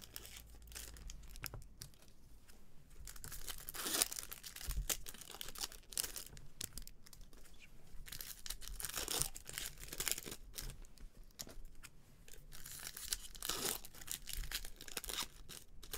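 Stiff foil trading-card pack wrapper crinkling and tearing as it is worked open by hand, in irregular crackly bursts with short pauses between.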